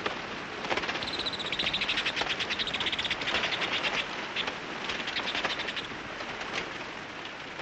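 A colony of little bent-winged bats in a cave, many squeaking and chittering at once: a dense, rapid, high twittering, busiest in the first half.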